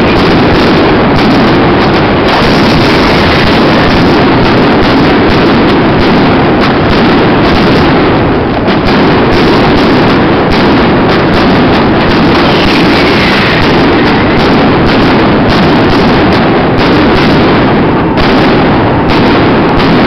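Many fireworks going off at once: rockets and aerial shells bursting overhead, their bangs and crackles running together into a steady, loud din with no break.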